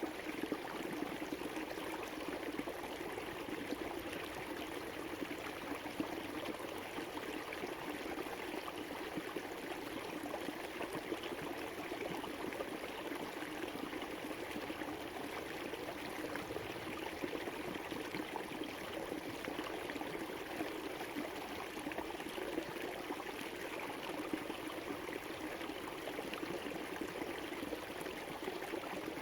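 River water flowing and rushing in a steady, even stream.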